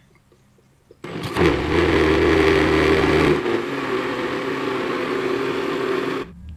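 Electric kitchen blender switched on about a second in, its motor running at speed as it blends a liquid mixture, settling to a slightly quieter, steadier pitch partway through, then cutting off suddenly near the end.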